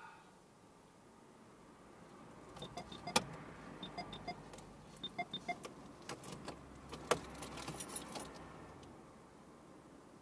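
Car keys jangling and clicking in the ignition of a Honda Civic Aerodeck as the key is tried again, in a run of irregular light clicks and rattles with no engine cranking: the battery is completely dead.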